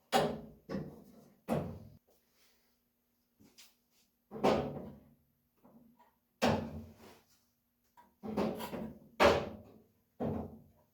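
A series of about nine irregular metal clunks and knocks, each dying away quickly. They come from the engine being shifted on its hoist and worked toward the raised transmission.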